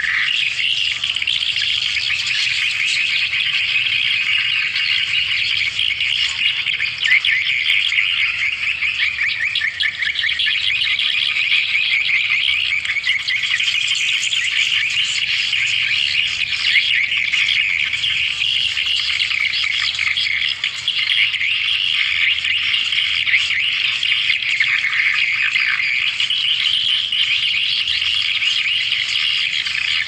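Swiftlet lure call: a dense, unbroken twittering of rapid high chirps from edible-nest swiftlets, the recorded call played to draw swiftlets in to roost and nest.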